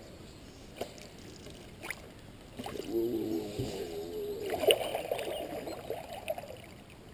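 Canoe paddle pulling through calm water: a few faint drips, then from about two and a half seconds in a gurgling swirl of water for several seconds before it fades.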